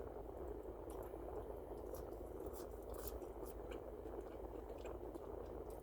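A person chewing French fries close to the microphone: soft, scattered mouth clicks and crunches over a steady low room hum.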